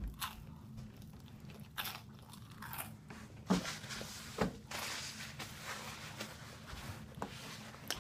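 Crunching and chewing of crispy fried chicken close to the microphone, with several sharp crunches a second or so apart amid wetter chewing.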